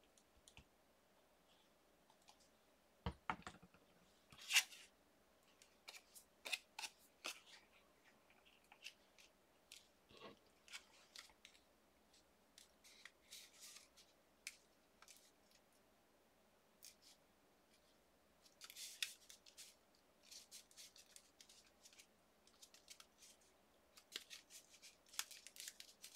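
Faint, scattered rustles and small clicks of paper being handled: a freshly glued paper piece pressed and folded between the fingers so it sticks.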